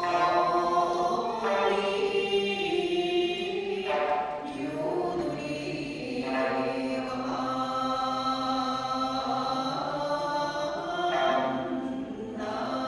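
A group of voices singing an Okinawan folk song together, holding long notes that shift in pitch every second or two.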